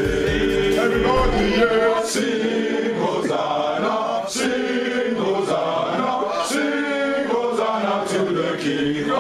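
A group of young men singing together unaccompanied, a chant-like song in several voices. A music track with heavy bass is heard at first and cuts off about a second in.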